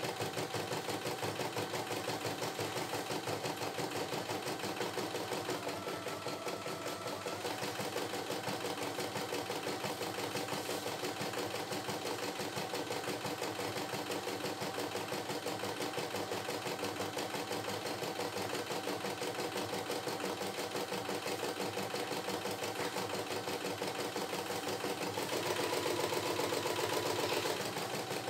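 CNY E960 computerized embroidery machine stitching a design, its needle running in a fast, steady rhythm. The tone shifts briefly about six seconds in, and the machine gets louder for a couple of seconds near the end.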